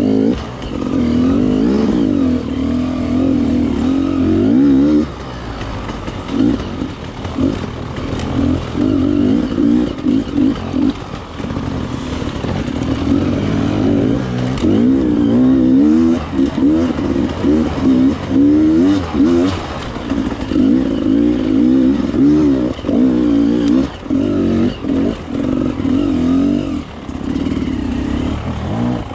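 Enduro motorcycle engine revving in quick throttle blips, its pitch swinging up and down. It is loudest for the first five seconds, then runs on in choppier, shorter bursts.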